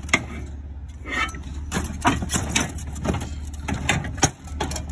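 Scrap metal pieces being shifted and set down in a utility trailer: a run of knocks and clatters, over a vehicle engine idling steadily.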